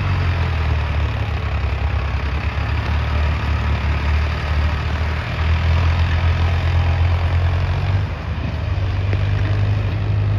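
Tractor diesel engine working under heavy load, hauling a full trolley of grain out across soft, wet field ground and up a rise. Its note shifts about five seconds in, then dips briefly near eight seconds.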